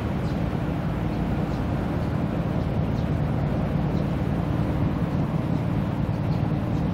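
Steady low rumble with a constant hum, mixed with wind on the microphone.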